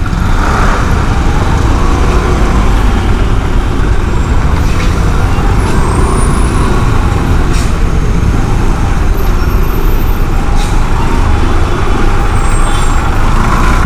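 Steady road noise from riding a gearless scooter through dense city traffic: the scooter's engine and the surrounding scooters, autorickshaws and buses blend into one continuous din with a heavy low rumble.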